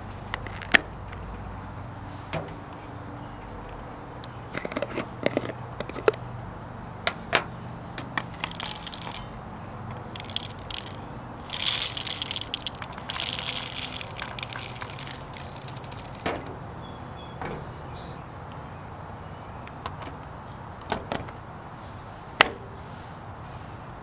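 Whole coffee beans poured from a glass jar into the hopper of a portable burr coffee grinder, rattling for a few seconds about halfway through. Scattered sharp clicks and taps of the grinder's plastic parts being opened, handled and closed come before and after.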